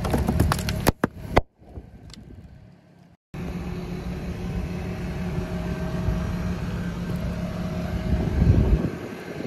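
Car engine running low as its tyre rolls over cardboard cream cartons, with sharp cracks and crunches as the packs burst in the first second or so. After a brief quieter stretch the steady low engine sound returns, with a louder low surge near the end.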